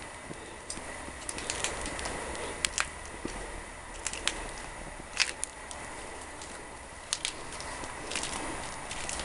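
Open flames burning in a fire table's glass-screened hearth: a steady hiss with scattered sharp crackles and pops, roughly one a second.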